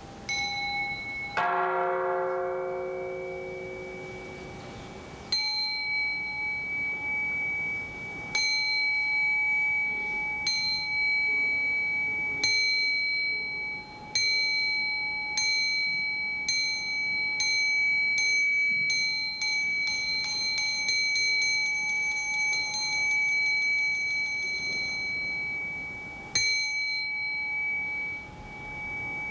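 Buddhist temple bells ringing: a richer, lower bell struck once near the start, then a high-pitched bell struck again and again, the strokes a few seconds apart at first and coming quicker and quicker into a fast roll that fades, with one last stroke near the end. Each stroke rings on.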